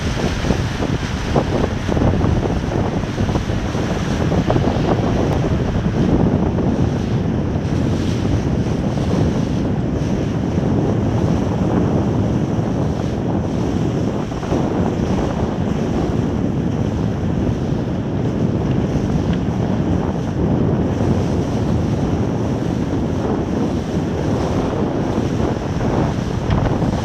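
Steady wind buffeting the microphone on a moving inflatable boat, with water rushing and splashing past.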